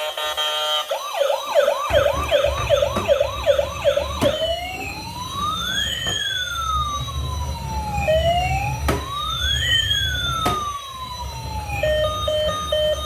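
Electronic siren from a toy emergency vehicle. It starts as a fast rising yelp repeated about three times a second, then becomes a slow wail that rises and falls twice, over a low rumble. Near the end it switches to a short beeping tune.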